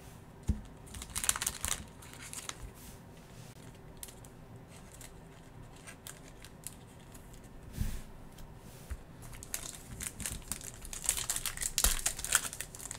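Crinkling of a trading-card pack's foil wrapper as it is handled and torn open, with a short burst about a second in and a longer stretch of crinkling and tearing near the end. Cards rustle as they are shuffled by hand in between.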